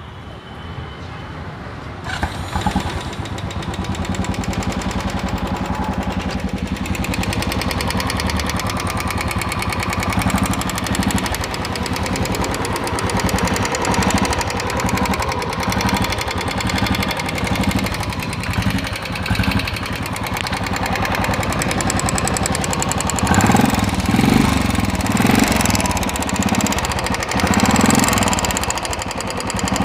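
Royal Enfield Bullet Classic 350 single-cylinder engine running with a rapid ticking, 'kit kit', from the valve train, which the mechanic takes for a loose hydraulic tappet (lifter) with play. It gets louder about two seconds in and surges a few times near the end.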